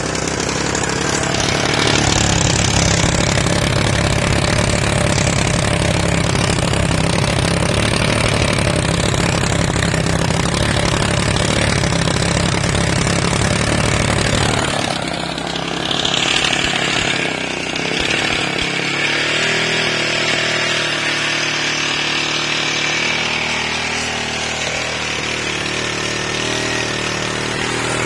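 Small engine running steadily under a modified GEET fuel-processor rig. About halfway through, the deep low running sound drops back and a steady higher hiss comes up.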